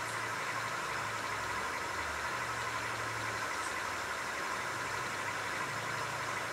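A steady machine-like hum and hiss with no distinct strokes, from a running motor or fan.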